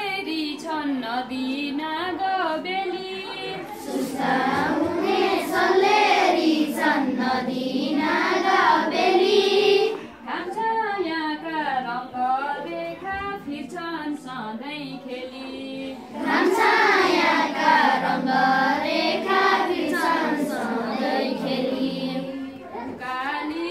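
A class of schoolchildren singing a Nepali poem together in a sing-song melody, the group growing louder for two stretches of several seconds each.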